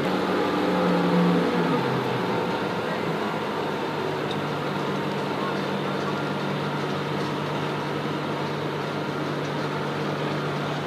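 A heavy vehicle engine running steadily with a low hum. In the first couple of seconds its pitch falls as it slows, then it holds at one steady speed.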